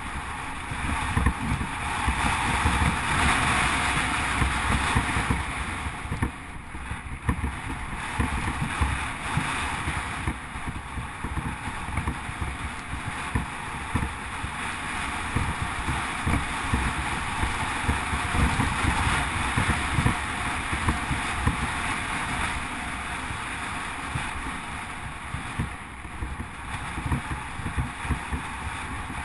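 Mountain bike tyres rumbling over a rough gravel track, with frequent irregular jolts and rattles from the bumps, under steady wind noise on the camera's microphone.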